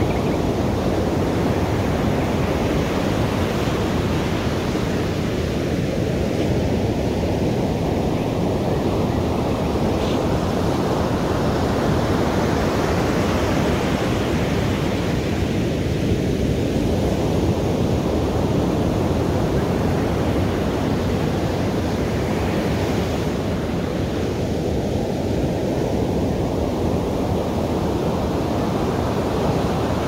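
Ocean surf on a beach: a continuous rushing wash of waves that swells and eases in slow cycles about every ten seconds.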